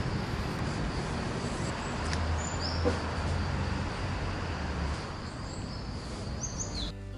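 Outdoor nature ambience: a steady rushing noise with a thin high steady tone, and short bird-like chirps about two and a half and six and a half seconds in.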